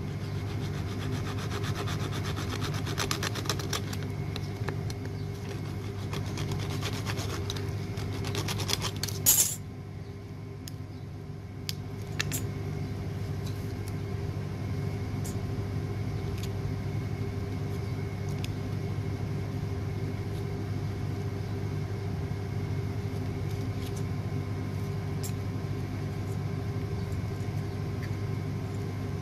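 Rapid rasping strokes of a metal blade being filed back and forth across a lead battery terminal clamp for about nine seconds. They end in one sharp clack, probably the tool being set down on the concrete. After that there are a few faint clicks and light scraping, over a steady low machine hum that runs throughout.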